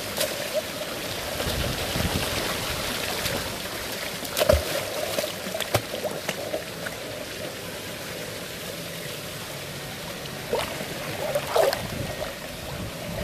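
Steady rain pattering on the water of a swimming pool, with a few short, sharper sounds, the loudest about four and a half seconds in.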